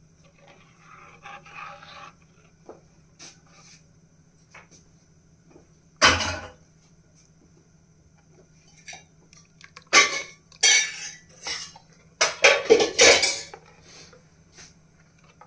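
A steel ladle clanking and scraping against a stainless-steel pan while stirring kadhi. There is a single sharp clank about six seconds in, then two runs of rapid clinking and scraping near the end.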